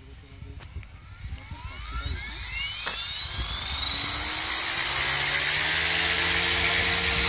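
Align T-Rex 450 Pro DFC electric RC helicopter spooling up for takeoff. Its motor and rotor whine rises in pitch and grows louder from about a second in, then settles into a steady whine for the last couple of seconds.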